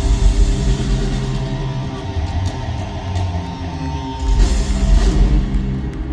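Live hard-rock band playing loud, with electric guitar over bass and drums. A burst of crashes comes about four seconds in, and the music drops away right at the end, like the closing chord of a song.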